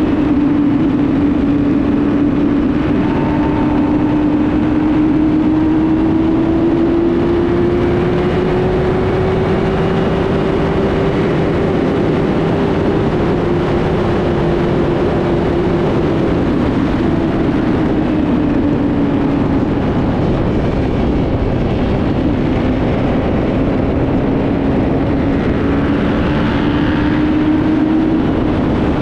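An engine running steadily, its drone slowly rising and falling in pitch over many seconds, under a loud, constant rushing noise.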